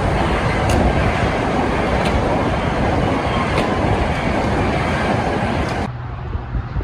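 A train passing close by: a steady rushing rumble of wheels on rail, with a faint click about every second and a half. It cuts off abruptly near the end, leaving a quieter low hum.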